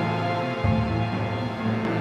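Background music: a dark, cinematic soundtrack with sustained notes over a deep bass note that comes in about half a second in.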